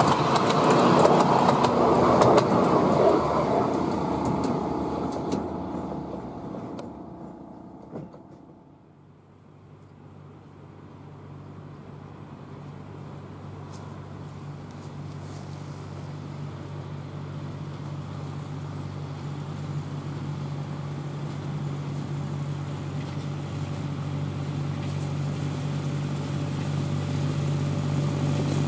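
Miniature railway train rumbling over the track as it runs away, fading over several seconds. Then a small diesel-hydraulic locomotive's engine hums steadily, growing louder as it approaches hauling its coaches.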